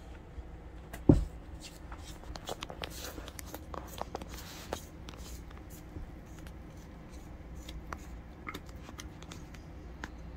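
Hands scraping sticky bread dough loose from a stainless steel mixing bowl: a run of soft scrapes and small clicks, with one loud thump about a second in.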